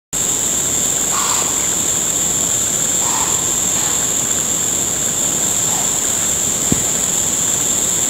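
Insects in summer woods droning steadily, a continuous high-pitched buzz over a rough background rush. Two short, lower calls come about one and three seconds in, and a single sharp click comes near the end.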